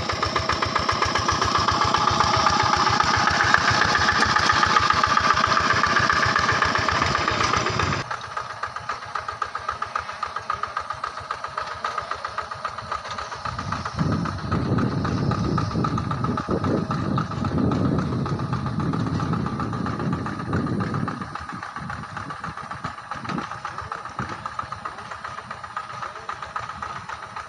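A two-wheel hand tractor's single-cylinder diesel engine chugging with rapid, even firing strokes as it tills a muddy rice paddy. It is close and loud for about the first eight seconds, then suddenly farther off and quieter.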